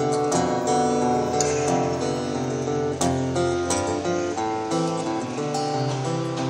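A live band playing an instrumental passage without singing, led by a strummed acoustic guitar in a steady rhythm.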